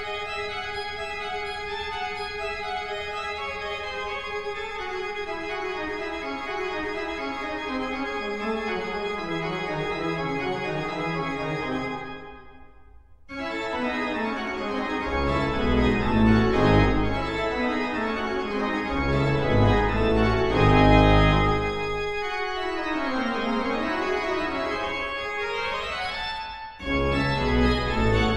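Pipe organ playing in a reverberant church: sustained chords under a line of notes that steps steadily downward, a brief drop-out about twelve seconds in, then deep pedal notes come in and the music grows louder, with a quick run of notes sweeping down and back up near the end.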